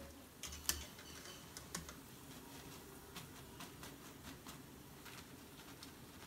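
Faint, irregular crackling and ticking of hot frying oil as fried pakoras are lifted out in a wire skimmer and drained. The sharpest crackles come in the first two seconds.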